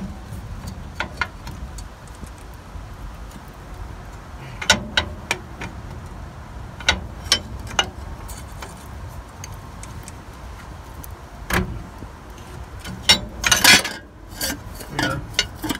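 Scattered metal clinks and knocks as a large pry bar works the old front shock absorber of a Ford E450 loose. A louder cluster of clanks comes about 13 seconds in as the shock comes free of its mount.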